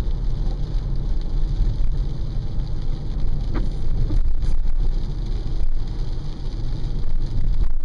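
Road noise inside a moving car's cabin in the rain: a steady low rumble of engine and tyres on the wet street, with the hiss of rain on the car.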